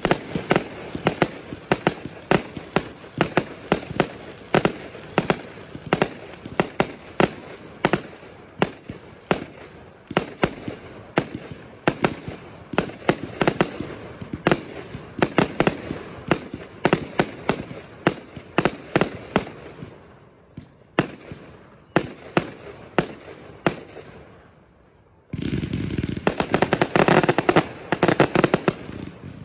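Fireworks going off in quick succession: sharp launch and burst bangs, several a second, thinning out after about 20 s. About 25 s in, a loud, dense run of rapid crackling bangs sets in and keeps on.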